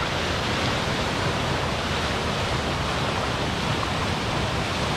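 Steady rushing of a river's current flowing over a shallow rocky shoal.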